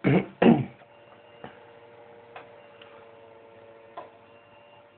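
Heater control relays of a home-built BGA rework station clicking as they switch the heaters on and off to hold temperature, with two heavier thuds near the start, then single sharp clicks every second or so over a steady faint hum.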